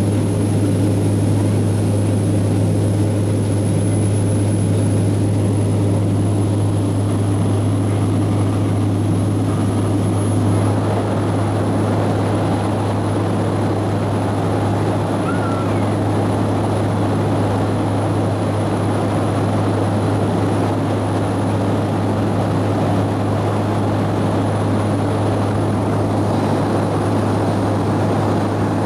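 Cabin noise of a small airliner in flight: the steady drone of its engines and propellers with a strong constant low hum under a rushing airflow noise.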